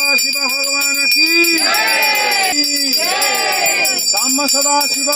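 Puja hand bell (ghanti) rung continuously in quick, steady strokes, its high ringing tones held throughout, while a man's voice chants over it.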